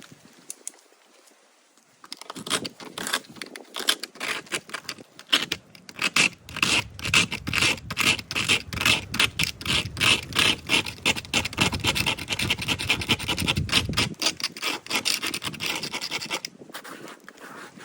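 Repeated scraping strokes of a hand tool worked back and forth over a wall surface, about two strokes a second. They start about two seconds in and ease off near the end.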